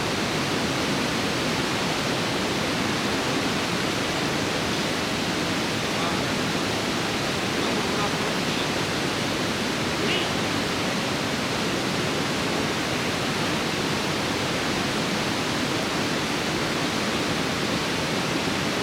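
Steady rush of river water pouring over a weir.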